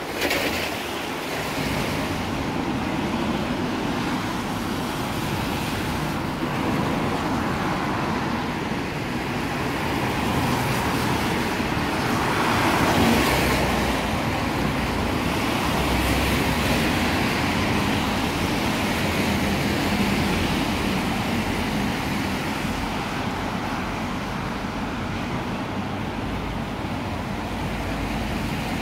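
Road traffic on a rain-wet street: cars passing with tyre hiss, one passing loudest about thirteen seconds in.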